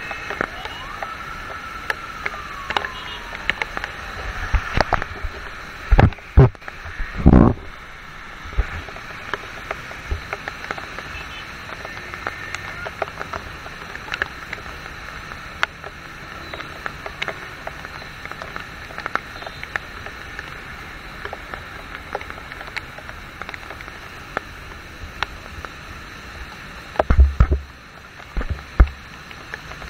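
Heavy rain and traffic on a wet multi-lane road make a steady hiss, with frequent sharp clicks. Loud low thumps come a few times around six to seven seconds in and again near the end.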